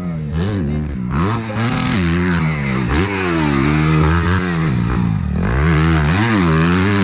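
Kawasaki motocross bike engine revving as it is ridden on a dirt track, the throttle opened and closed again and again so the pitch keeps rising and falling.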